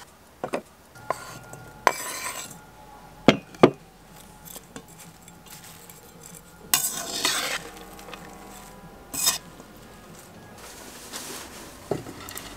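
A salad being mixed in an enamel bowl with a utensil: a series of sharp knocks and clinks against the bowl, and short stretches of scraping and rustling as the vegetables are tossed. The longest and loudest scrape comes about seven seconds in. Near the end a clay cooking pot knocks lightly as it is handled.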